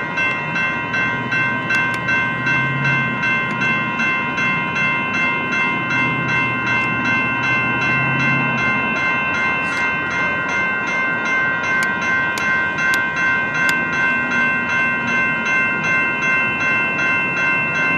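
Electronic railroad-crossing bells ringing, a little over two strikes a second, several bells overlapping. A low hum comes and goes underneath.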